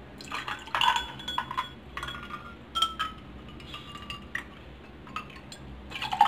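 Water poured from a plastic bottle into drinking glasses holding ice cubes, with scattered clinks of ice and glass.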